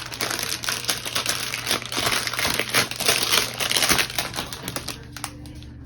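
Plastic packaging crinkling as it is handled and pulled open: a dense run of small crackles that dies down near the end.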